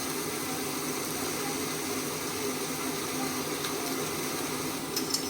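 Chicken, onions and mushrooms sizzling steadily in a frying pan, with a few light clicks near the end.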